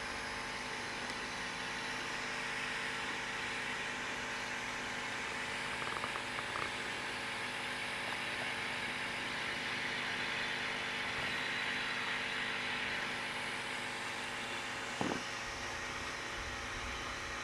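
Steady mechanical hum with hiss, made of many steady tones, with a brief knock about fifteen seconds in.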